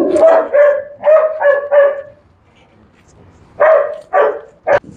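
A dog barking repeatedly: a quick run of about five barks, a pause of over a second, then three more barks near the end.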